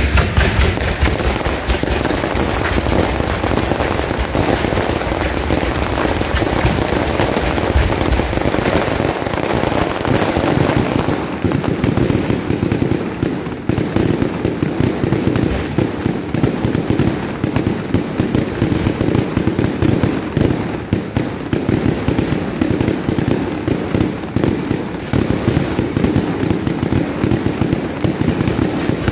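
Dense, continuous barrage of fireworks from a Russo Fireworks display: rapid overlapping bangs and crackling with no pause. Deep booms are heavy for about the first eight seconds, after which it goes on as a thick crackle of reports.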